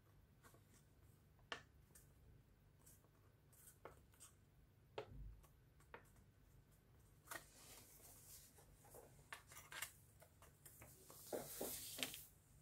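Faint rustling and crinkling of a folded paper plane being handled and pressed between the fingers, with scattered small ticks and a longer rustle near the end.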